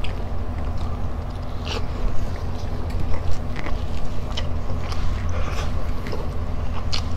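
Close-miked chewing of a mouthful of food, with a few sharp wet mouth clicks and smacks scattered through, over a steady low hum.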